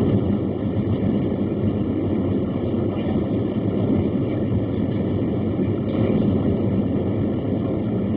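Boeing 737-700's CFM56-7B jet engines at takeoff thrust, a steady, even roar heard from inside the cabin during the takeoff run.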